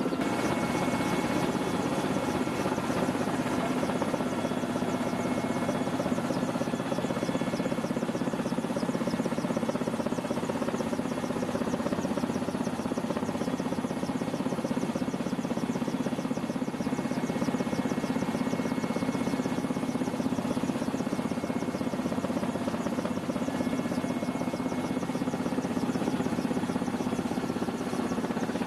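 Steady engine and rotor noise of a military helicopter in flight, heard from inside its cabin, with a fast even flutter and a constant whine.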